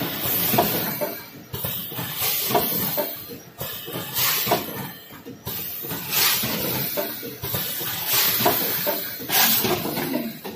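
Rotary premade-pouch filling and sealing machine running: air hissing in regular pulses about every two seconds as its pneumatics cycle, with mechanical clacks as the carousel indexes.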